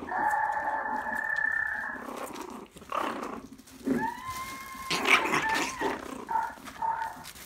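Maltese puppies whining and yipping while they play-wrestle: a long high whine over the first two seconds, another that rises and then holds about four seconds in, then a run of short yips with scuffling.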